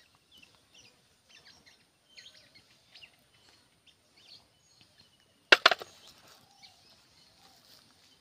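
Small birds chirping faintly in the background, with a sudden loud knock or clatter about five and a half seconds in.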